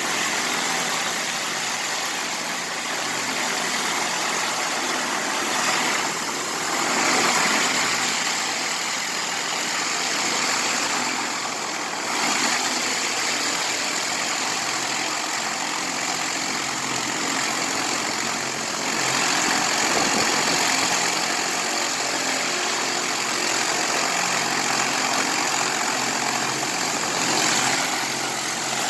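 Pressure washer running steadily, its engine drone under the hiss of the high-pressure water jet, the spray noise swelling and easing every few seconds.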